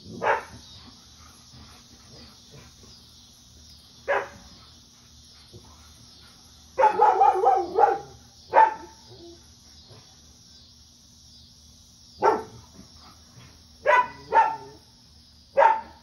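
A dog giving short barks, singly and in a quick run about seven seconds in, over a cicada's steady high buzz that pulses evenly.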